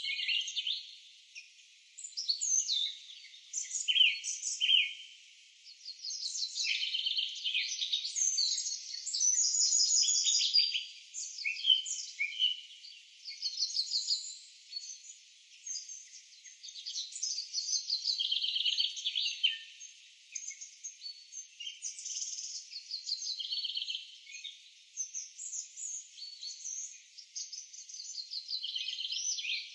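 Forest birds singing: a dense run of overlapping chirps and fast trills, all high with nothing low, swelling and easing with short lulls every few seconds.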